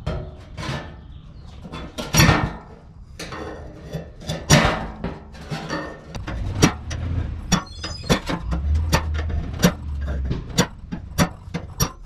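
Repeated scraping strikes of a ferro rod against a notch in the knife's spine. There are a few longer rasps at first, then quicker, sharper strikes about two a second from halfway on, and they fail to light the fatwood.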